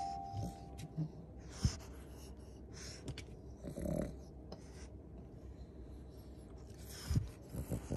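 Pekingese dog breathing noisily through its short nose, with two louder breaths about three and four seconds in. A two-note chime dies away at the start, and a few faint clicks come near the end.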